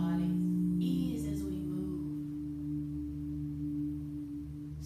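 Ambient background music of sustained drone tones holding steady, with a woman's voice trailing off at the very start.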